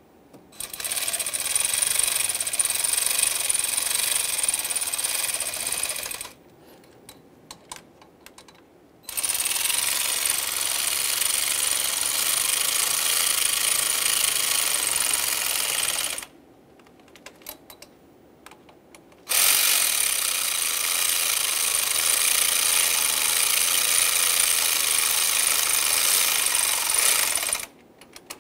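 A power ratchet driving the thermostat housing's mounting bolts down, in three steady runs of about six to eight seconds each, one per bolt, with small clicks of the socket being moved between runs.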